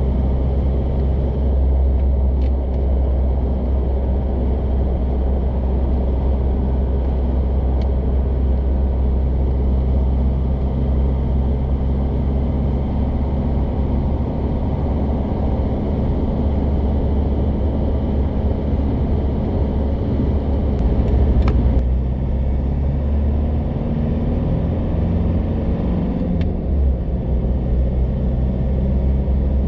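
Road and wind noise inside the cabin of a 2015 Isuzu D-Max dual cab ute cruising at highway speed: a steady low rumble of tyres and wind with the engine's drone underneath, and a few brief clicks.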